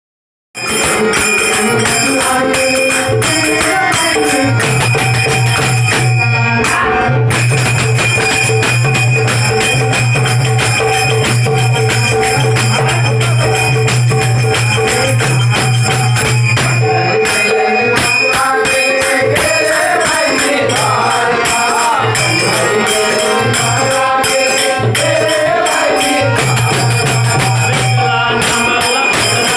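Marathi devotional bhajan: a singer with dholki drum accompaniment and dense percussion strokes, starting abruptly about half a second in.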